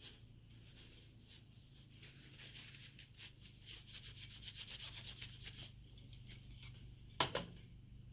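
A CPU heatsink being wiped clean of old thermal paste, with a run of quick rubbing strokes through the middle. A single sharp knock near the end.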